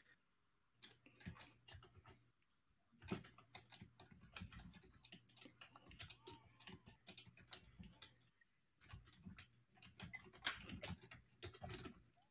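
Near silence with faint, irregular small clicks and taps, and a faint low hum that comes and goes.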